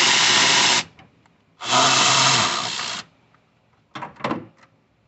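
Small cordless power tool whirring in two runs of about a second and a half each, backing out the 10 mm bolts that hold the radiator fan assembly. A few short knocks follow near the end.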